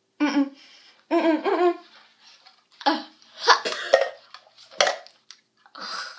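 Two young women groaning without words, then laughing in disgust at the taste of black licorice.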